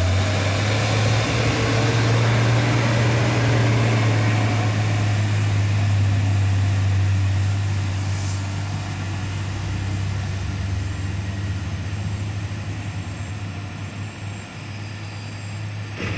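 Heavy truck's diesel engine running close by with a steady low drone over road noise, growing quieter about halfway through.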